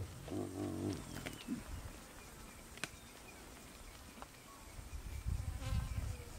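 Spotted hyenas calling at close range. One low, wavering call lasts under a second near the start, a shorter call follows soon after, and a run of low rumbling calls comes near the end.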